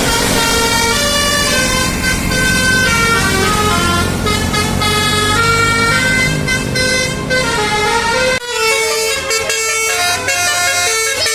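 Bus telolet horn, a multi-tone air horn, playing a quick melody of stepped notes over a low rumble. The rumble cuts off suddenly about eight seconds in while the horn tune continues.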